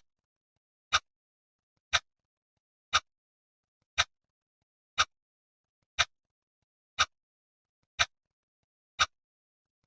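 Clock ticking once a second: sharp, evenly spaced ticks with silence between them.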